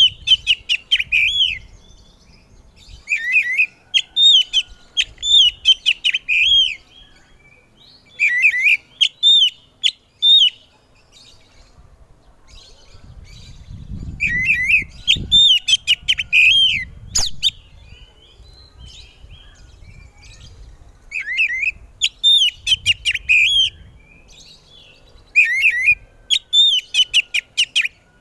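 Oriental magpie-robin (kacer) singing loudly: phrases of quick, repeated whistled notes, each phrase lasting one to three seconds with short pauses between.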